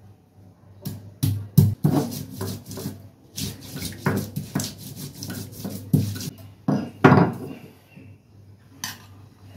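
Kitchen dishes and utensils clattering and knocking at a cooking stove, with rubbing and scraping in between: a steel pan and plate being handled while cooking.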